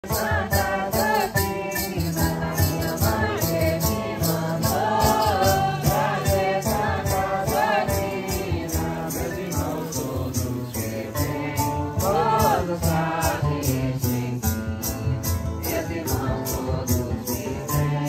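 A group sings a Portuguese devotional hymn in unison, accompanied by strummed acoustic guitars. Maracas shaken on the beat about three times a second keep a steady rhythm.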